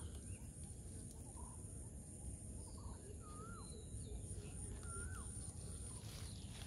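A bird calling: a short whistled note that rises, dips and then drops away, repeated three times about two seconds apart, with a few fainter short notes between, over a low rumble.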